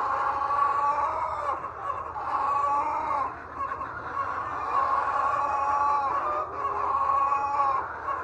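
A large flock of chickens clucking and calling at once, many drawn-out calls overlapping into a continuous din.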